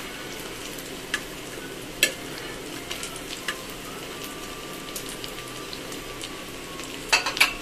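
Dal and chicken tikkis shallow-frying in ghee on a flat tawa, a steady sizzle. Metal spatula and tongs click against the pan, once sharply about two seconds in and in a quick cluster near the end.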